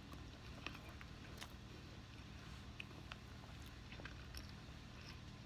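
Faint chewing and scattered soft mouth clicks of a person eating, over a low steady hum.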